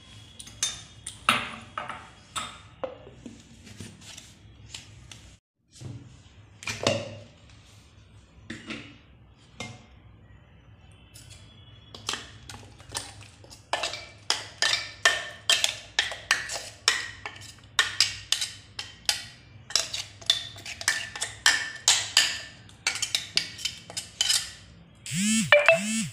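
Metal spoon clinking and scraping against a stainless steel mixer jar while thick ground-maize batter is scooped out into a bowl. The knocks are scattered at first, then about halfway through come as a fast run of sharp clinks, two or three a second.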